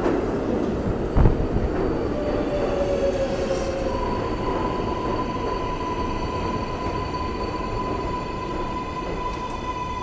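R188 subway train pulling into an underground station, its cars rolling past along the platform with a loud knock about a second in. From about four seconds in, a steady high whine with overtones sounds over the rumble as it slows.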